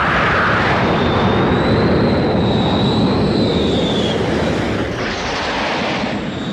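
Fighter jets (an F-14 Tomcat and A-4 Skyhawks) flying past, a steady loud rush of jet-engine noise. A high whine wavers over it for a few seconds, and a fresh rush of engine noise swells about five seconds in.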